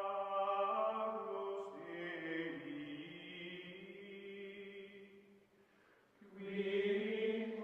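Closing music of chant-like voices holding long, steady notes; it fades nearly away about five to six seconds in, then swells back up.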